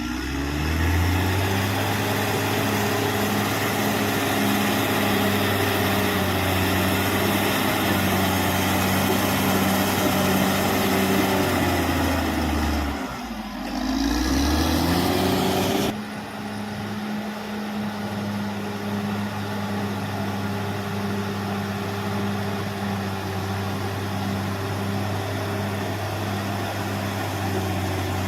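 Caterpillar D6R XL bulldozer's diesel engine running steadily at working revs. About thirteen seconds in, the revs drop and pick back up, and a few seconds later the sound changes abruptly.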